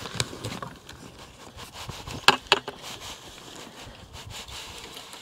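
Potting soil pouring out of a plastic bucket into a fabric-lined hayrack planter: a soft crackling rustle, with two sharp clicks a little over two seconds in.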